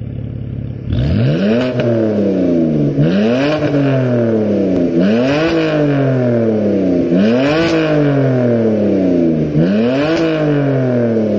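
BMW F10 523i's naturally aspirated inline-six, revved at a standstill through an aftermarket X-pipe exhaust with dual valved mufflers and quad tips. It idles for about a second, then gets five throttle blips, each climbing quickly and falling back slowly.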